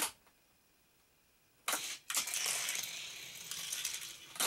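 A click, then about a second and a half in the sharp snap of a spring-loaded Hot Wheels track launcher firing, followed by a die-cast car rolling fast along plastic track for about two seconds. Another click comes near the end.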